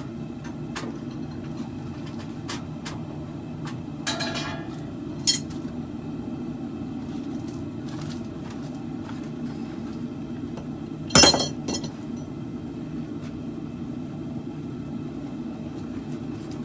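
Steady low roar of a propane forge burner, with three sharp ringing metal clinks: about four seconds in, just after five seconds, and the loudest about eleven seconds in.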